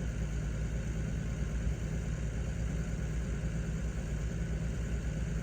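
A diesel engine idling steadily with a low, even hum, with no change in speed.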